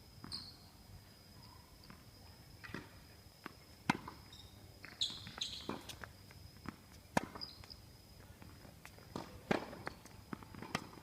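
Tennis rally: sharp, separate knocks of the ball being struck and bouncing, several seconds apart, with footsteps on the court in between.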